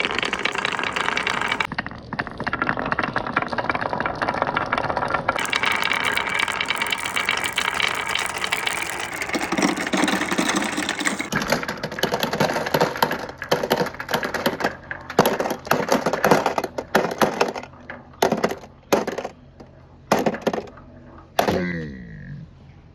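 Marbles rolling and clattering down a wooden marble run: a dense rattle of clicks for about eleven seconds, then thinning to separate clicks and knocks.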